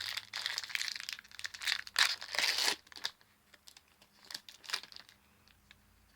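Foil wrapper of a Pokémon trading-card booster pack crinkling and being torn open, loudest about two seconds in, then only faint rustles.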